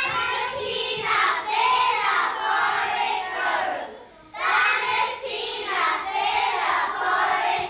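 A group of children singing together in unison, in two phrases with a short break about four seconds in.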